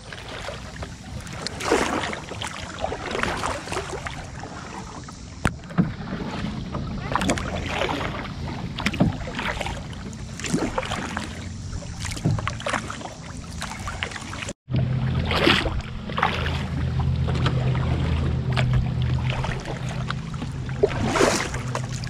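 Canoe paddles dipping and pulling through lake water, a splash about every two seconds.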